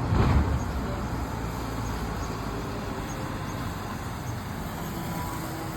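Road traffic: a steady low engine rumble of vehicles on a town street, louder for a moment at the start.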